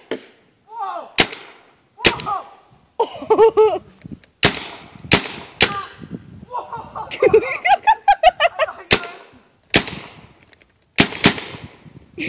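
Paintball marker firing single shots, about nine sharp cracks at irregular intervals. Short voice sounds come between some of the shots.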